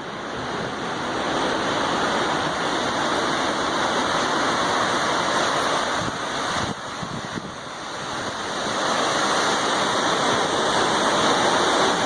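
Strong storm wind gusting, a loud steady rushing noise that the filmer takes for a tornado. It eases briefly about seven seconds in, then builds again.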